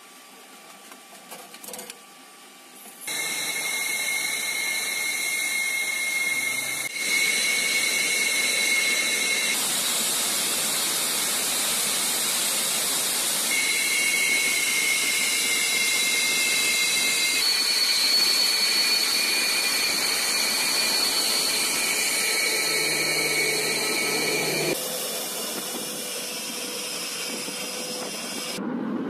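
Sukhoi twin-engine jets running on the ground: a loud steady jet hiss with high turbine whines. It starts suddenly about three seconds in, after quieter cockpit sounds, and the pitch of the whine shifts abruptly several times.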